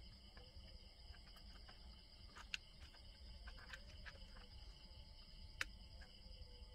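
Near silence: faint steady insect chirring, with a few small clicks as parts of a chainsaw's carburetor are handled. The sharpest clicks come about two and a half and five and a half seconds in.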